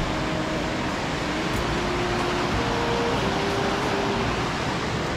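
Teesta river in flash flood, its turbulent water rushing with a steady, loud noise. A faint melody of held notes plays over it.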